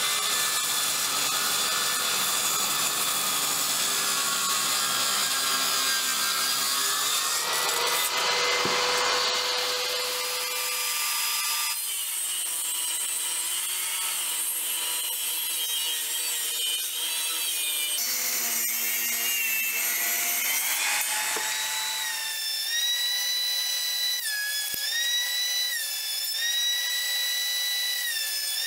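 Woodworking power tools cutting and sanding wood, heard in several separate stretches. Near the end a tool's motor whine sags and recovers about every two seconds as it bites into the wood.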